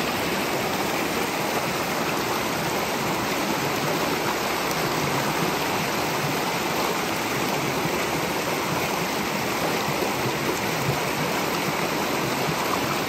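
Running water of a hillside stream, a loud, steady rush of flowing water.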